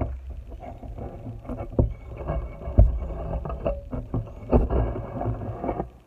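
Handling noise on a phone's microphone: rubbing and rustling with a low rumble and several sharp thumps as the phone is moved and set in place, cutting off suddenly near the end.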